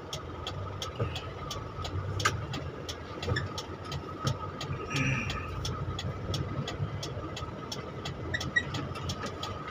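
Vehicle engine running low and steady while a turn-signal indicator ticks evenly, about three ticks a second, for a left turn.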